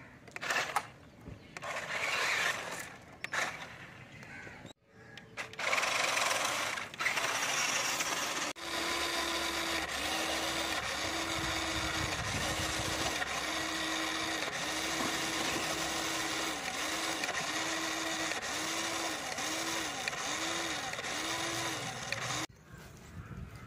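Electric drive motors and gearboxes of a six-wheel RC monster truck whining in short bursts. About a third of the way in they settle into steady running for some fourteen seconds, the whine dipping in pitch about once a second. The truck is straining against a log-laden trolley and barely moving.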